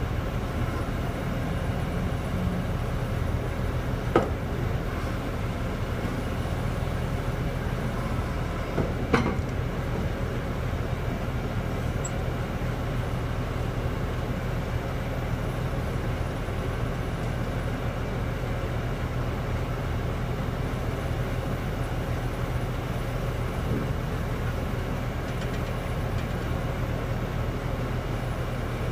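Truck-mounted well-drilling rig's engine running steadily with a low, even drone. Two sharp knocks stand out, about four seconds in and again about five seconds later.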